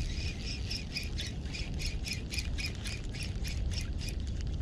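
A bird calling in a rapid, even series of short high notes, about five a second, stopping shortly before the end.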